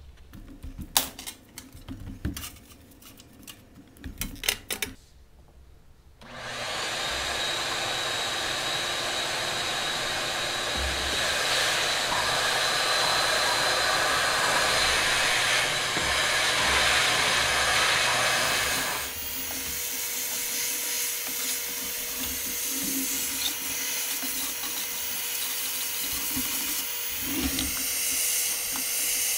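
A push broom scraping and knocking on a wooden stage sub-floor, then a wet/dry shop vacuum switches on about six seconds in and runs steadily while the floor is vacuumed through its hose wand. About two-thirds of the way through it gets somewhat quieter, leaving a steady whine.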